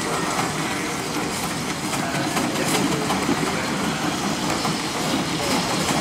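Steam road roller moving slowly over loose gravel: its steam engine running, with stones crunching and clattering under the heavy rolls.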